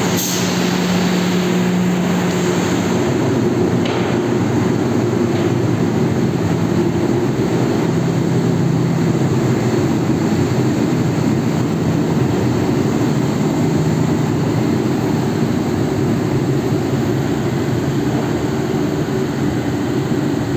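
Industrial fans or blowers of a glass tempering line running steadily: a loud, even rush of air over a low hum whose pitch wavers slightly.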